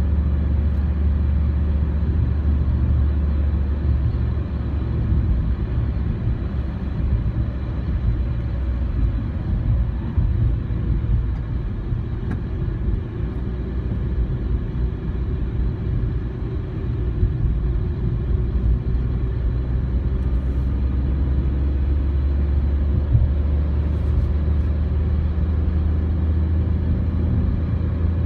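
Car driving along at road speed, heard from inside the cabin: a steady low rumble of engine and tyres on the road.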